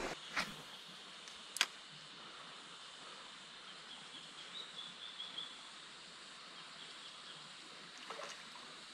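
Quiet outdoor ambience: a steady high hiss, two sharp clicks in the first two seconds, and faint bird chirps about halfway through.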